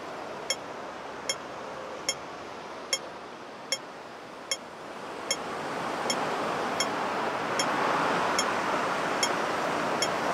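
Pedestrian crossing signal ticking slowly and evenly, a little over once a second, while street and traffic noise swells in from about halfway through.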